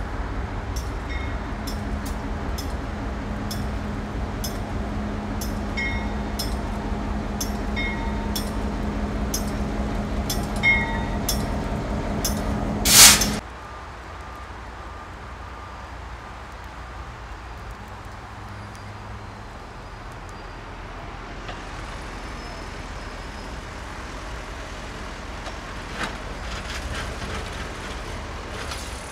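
Heavy machinery running steadily at a rail work site, a low hum with light clicks recurring about every second, ending in a sharp loud burst of noise about 13 seconds in. After that it drops abruptly to a quieter, even din of distant machinery.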